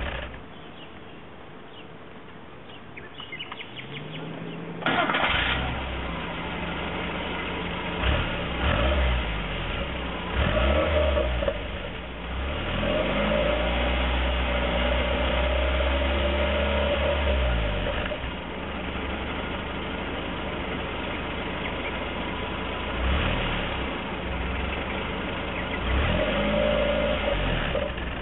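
Skoda Favorit's 1.3-litre four-cylinder petrol engine heard from the tailpipe: it cranks and catches about five seconds in, then idles and is blipped several times, with one longer held rev in the middle, each rev rising and falling back to idle. The exhaust note is the popping the owner calls "poprdkávanie".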